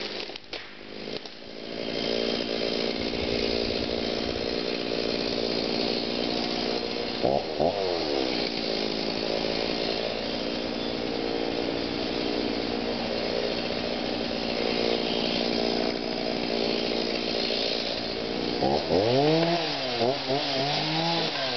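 Chainsaw engine running steadily under load, cutting into a cedar trunk. About seven seconds in, its pitch dips and rises once. Near the end, the revs swing up and down repeatedly.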